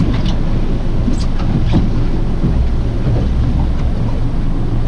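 Boat engine running steadily under a wash of wind and sea noise, with a few faint clicks.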